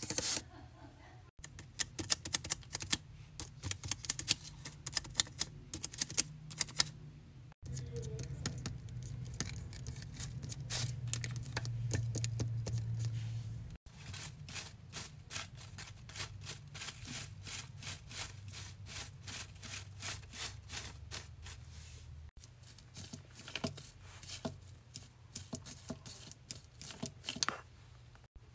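Fingers tapping, flicking and crinkling the paper and ribbon pieces of a fidget board: quick runs of light clicks and rustles, broken by several abrupt cuts, over a low steady hum.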